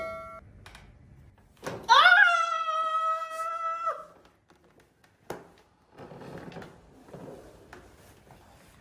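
A woman's high-pitched scream, about two seconds long, starting about two seconds in, drawn out of her by a chiropractic adjustment. A sharp knock follows about a second later, then soft breathy sounds.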